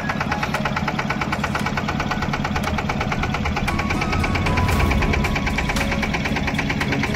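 A small fishing boat's engine running steadily with a rapid, even knocking beat as the boat moves out across calm water.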